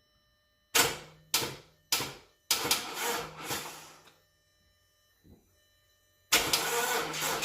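Audi A4 2.0T engine turned over by its starter motor in three short bursts, then a longer crank, a pause, and a sustained crank from about six seconds in, without catching: a crank-but-no-start condition.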